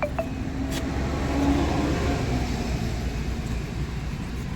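A motor vehicle engine running over a steady low hum, swelling for a couple of seconds and then easing off.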